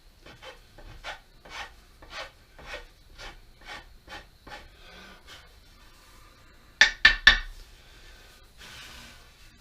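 Hand tool scraping aspen wood in short, even strokes, about two a second, as a corner of a carved walking stick is shaved off. About seven seconds in come three sharp knocks in quick succession, the loudest sounds here.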